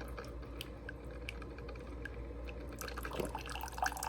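Coffee maker brewing: liquid dripping in small, irregular drops and ticks over a steady low hum.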